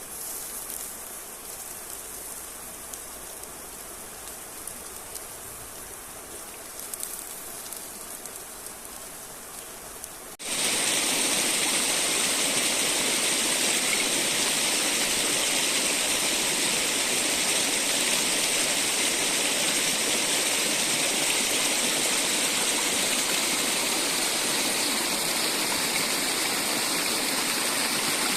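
River water rushing steadily. For the first ten seconds or so there is a softer hiss with a few faint ticks, then it cuts suddenly to much louder, nearer rushing water.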